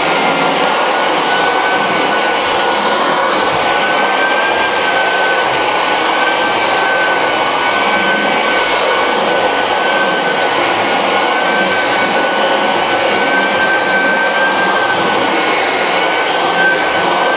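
Floor edger with a 50-grit sanding disc running steadily as it sands down subfloor seams to level them. A loud, even motor and sanding noise with a high whine that wavers slightly in pitch.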